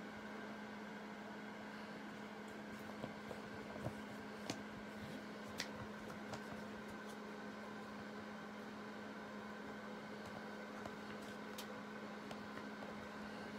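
Light clicks and taps of plastic Blu-ray cases and a slipcover being handled, scattered through the first half, over a steady low hum.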